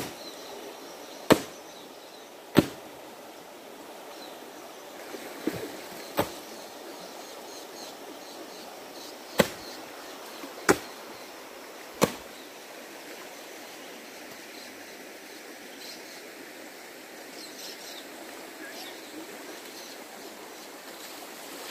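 Steady rush of flowing river water, with a run of sharp knocks or slaps, about eight spread over the first half, then only the water.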